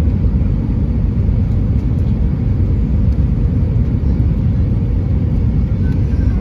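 Steady low rumble inside an Airbus A320's cabin on final approach, from the engines and the air rushing past the airframe, heard from a window seat by the wing.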